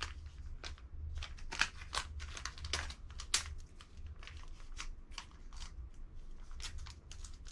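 A small packet of screen protectors being picked open by hand: a string of irregular light crinkles and clicks of thin plastic and paper packaging.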